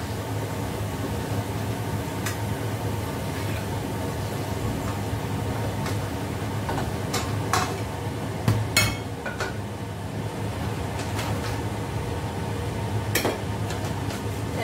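A metal spatula and ladle stirring and scraping in a steel wok while stir-frying, with several sharp metal clinks, one ringing clink about nine seconds in. A steady low hum runs underneath.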